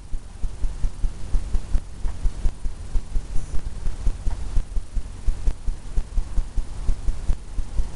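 Paintbrush working on a stretched canvas on an easel, heard as a quick, uneven run of low, soft thumps, about three or four a second, as the strokes go along the canvas.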